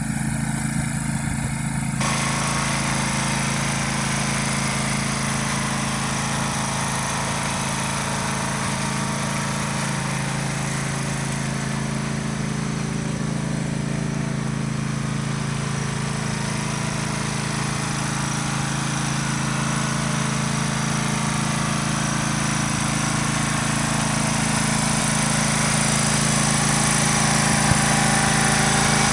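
John Deere riding lawn mower's engine running steadily, growing slightly louder toward the end.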